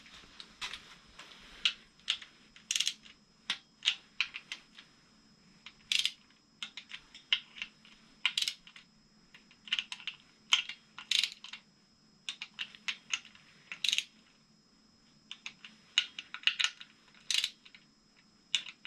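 Socket wrench ratcheting in short, irregular runs of sharp clicks as the timing cover bolts are tightened to a 7 ft-lb torque spec.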